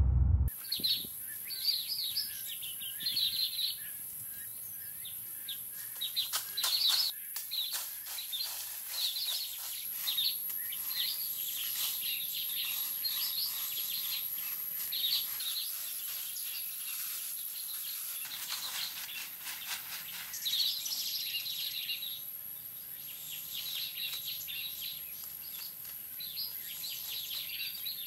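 Tropical forest birds chirping and calling again and again, over a steady high-pitched whine. A run of short crackles comes about a quarter of the way in.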